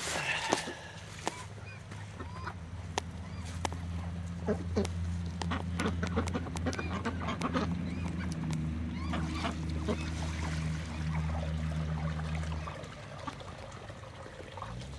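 Domestic ducks feeding together from a rubber bowl: many quick clicks of bills dabbling in the feed, with short quacks here and there, over a low steady hum that stops near the end.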